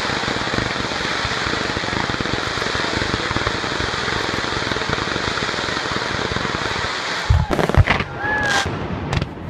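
Fireworks display: a dense, continuous crackling and popping from a low fan-shaped barrage fired from ground level. About seven seconds in it changes abruptly to a few loud separate bangs of aerial shells bursting.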